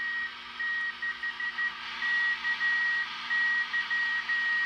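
Morse code (CW) received on a vintage National SW-54 tube shortwave radio with its BFO on: a steady high beep keyed on and off in dots and dashes over a hiss of band noise.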